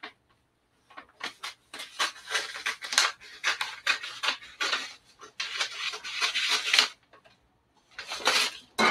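Sublimation transfer paper crinkling and rubbing against a towel as hands smooth and shift it on a heat press platen: irregular rustles and scrapes, with a pause about seven seconds in.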